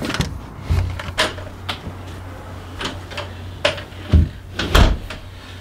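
An interior door being opened and shut: the knob and latch click, there are light knocks and steps, and the door closes with two heavier thumps about four to five seconds in. A low steady hum sets in about a second in.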